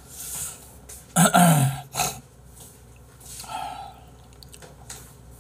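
A man burps once, loudly, a little over a second in, the pitch sliding down as it goes.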